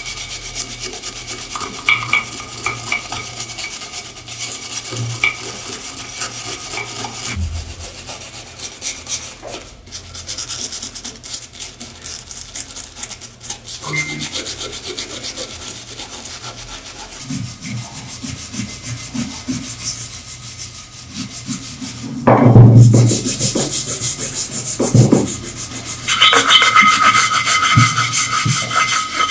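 Wire brush scrubbing rust and grime off an antique metal teapot: a steady, rapid scratching of bristles on metal. It gets louder and harsher about three quarters of the way through.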